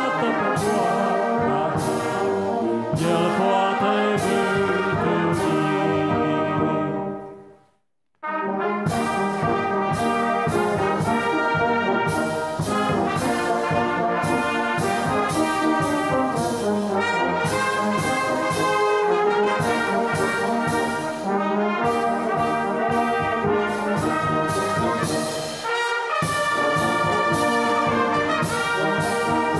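Brass band of trumpets, euphoniums and tubas playing a slow hymn in full chords. The chord dies away about seven seconds in, there is a brief moment of silence, then the band comes back in together for the next verse.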